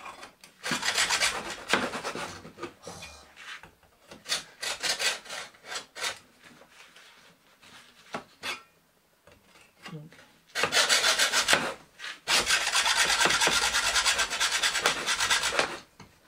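Fine-toothed hacksaw sawing through a bamboo cane: quick runs of rasping back-and-forth strokes broken by pauses, then a long, fast, steady run of strokes in the last third that finishes the cut.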